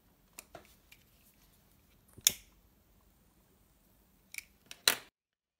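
A few light taps of tealight candles set down on a wooden desk, and sharp clicks of a pocket lighter being struck to light them, the loudest about two seconds in and two more near the end. The sound then cuts out abruptly.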